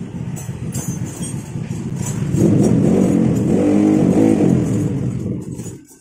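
Yamaha Aerox scooter's single-cylinder engine idling steadily, then revved up and down for about three seconds from about two seconds in; the sound cuts off just before the end.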